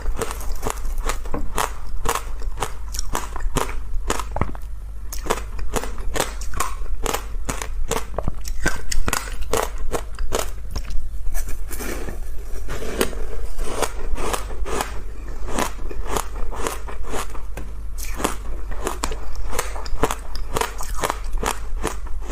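Close-miked crunching of ice being bitten and chewed: a dense run of sharp, crackly crunches several times a second, with no pause.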